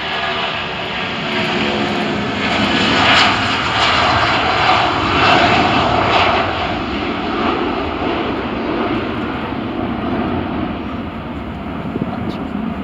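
Icelandair Boeing 757's twin jet engines at takeoff thrust as it rolls down a wet runway and lifts off, swelling to its loudest a few seconds in as it passes, then slowly fading as it climbs away.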